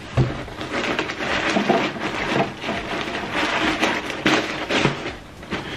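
A cardboard delivery box being unpacked: its packing material crinkling and rustling, with scrapes and small knocks, until the sound drops off near the end.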